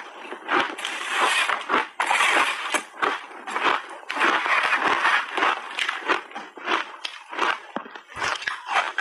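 Close-miked chewing of crunchy refrozen shaved ice: a dense, continuous crackling crunch, with several louder stretches of crunching as the ice breaks between the teeth.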